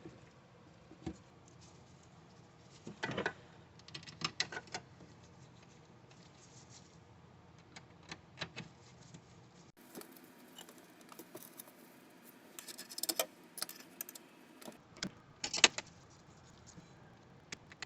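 Faint, scattered small metal clicks and light rattles of T10 Torx screws and a screwdriver being handled as the screws go back into a side panel, in irregular clusters with quiet gaps between.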